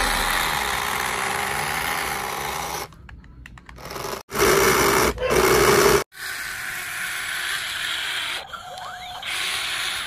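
Plastic toy trucks scraping and rattling through sand, in separate stretches that change abruptly about three and six seconds in, loudest for about two seconds just before the second change.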